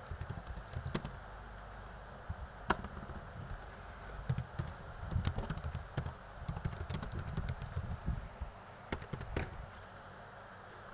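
Computer keyboard being typed on: irregular key clicks in short runs, dying away near the end.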